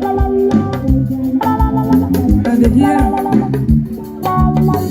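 Band music: an electronic keyboard playing held, organ-like chords over a regular drum beat of about two hits a second, with no singing.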